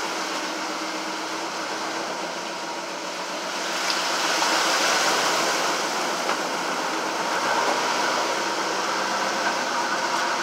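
An old truck's engine running as its tyres churn and splash through floodwater, heard from inside the open cab; the wash of water gets louder about four seconds in.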